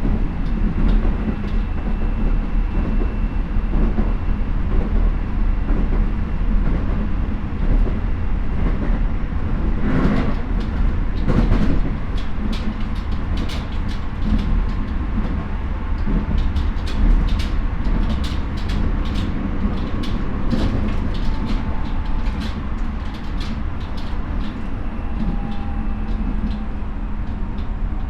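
Keio 9000 series electric train running, heard from inside the passenger car: a steady rolling rumble with many short clicks of the wheels over rail joints. There are two louder knocks about a third of the way in.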